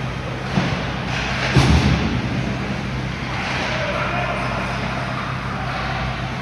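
Ice hockey play in a rink: sticks, skates and puck on the ice over a steady low hum, with a small knock about half a second in and a sharper thump about a second and a half in.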